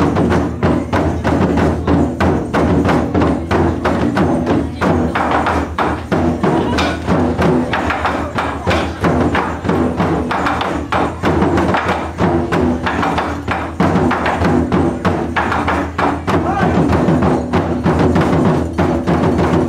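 Taiko ensemble drumming on barrel drums, a fast, steady stream of strokes with sharp wooden clacks among the deep drum hits.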